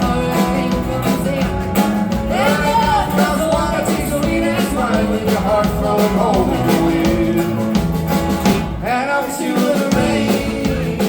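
Live rock band playing an instrumental stretch of a country-blues-tinged rock song over a steady beat and bass, with a lead line that bends up and down in pitch.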